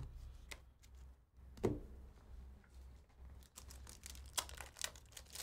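Faint clicks and rustles of trading cards and plastic card holders being handled, over a low steady hum.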